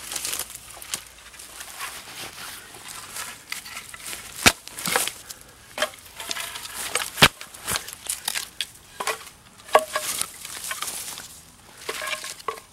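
Green and dry wooden branches being snapped and broken by hand, with sharp cracks of breaking wood, the two loudest about halfway through. Between them, sticks and dry grass rustle and crackle as the wood is handled and laid on the ground.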